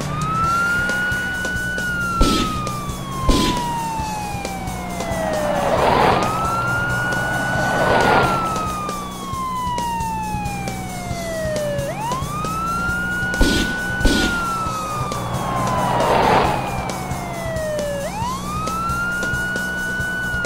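Police car siren wail: a tone that rises quickly and then falls slowly, repeating about once every six seconds. A few sharp knocks and whooshing swells sound over it.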